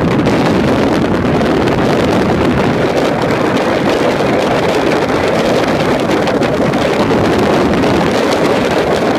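Steady wind rush and engine drone of a 2013 Porsche Boxster's flat-six cruising at speed, with wind buffeting the microphone.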